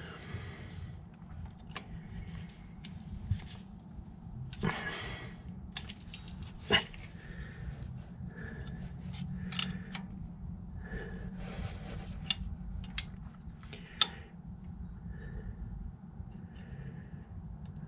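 Quiet hand-work at a truck's front brake caliper during gravity bleeding: a few sharp light clicks of a wrench at the bleeder screw, the loudest about seven seconds in, with short breathy noises between them over a steady low hum.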